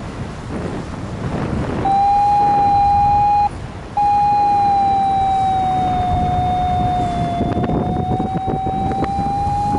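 Wind buffeting the microphone, then about two seconds in a loud, steady, siren-like tone starts, breaks off briefly, and resumes, its pitch sagging slightly and rising back.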